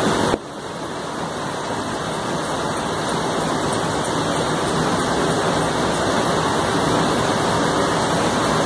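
Heavy rain falling, a steady loud hiss. It drops suddenly a moment in and then slowly swells back.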